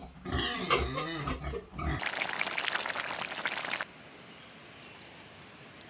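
Domestic pig grunting for about two seconds, then a burst of loud crackling hiss lasting nearly two seconds that cuts off suddenly, leaving a faint steady background.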